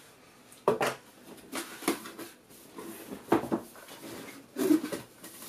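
Cardboard product box being handled and shifted on a wooden desk: a few short knocks and scrapes, the loudest near the middle and about a second before the end.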